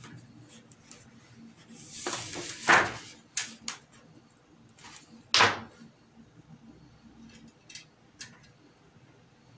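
Scattered clicks and knocks of hands handling the TV's LED backlight strips and their plastic connectors, with a short rustle about two seconds in and the loudest knock a little after five seconds.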